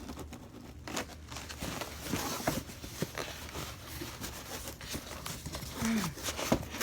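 Cardboard packaging being handled while a mini fridge is unboxed: scattered irregular knocks, taps and rustles of cardboard.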